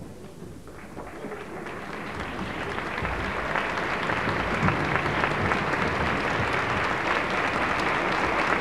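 Large theatre audience applauding. The clapping starts about a second in and grows steadily louder.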